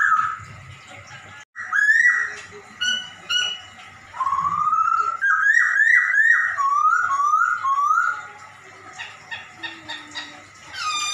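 Poksay Hongkong, a laughingthrush, mimicking a cat: runs of short sliding meow-like notes, several in quick succession, mixed with high thin chirps. A longer rising note comes near the end.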